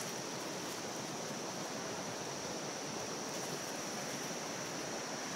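Small rocky river rushing over stones: a steady, even rush of water, with a steady high-pitched tone held above it.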